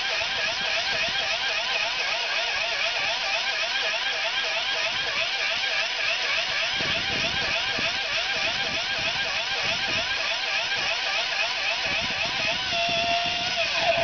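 Electric blade grinder, a coffee-mill type with four steel blades, running at full speed while pulverising potassium nitrate. Its high whine wavers rapidly in pitch as the grinder is shaken, then holds steady for the last second or so.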